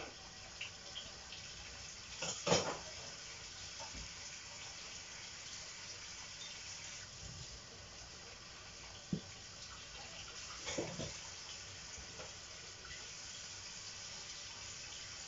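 Knife cutting cherry tomatoes on a wooden cutting board: a few short knocks, the loudest about two and a half seconds in and a small cluster near eleven seconds, over a steady background hiss.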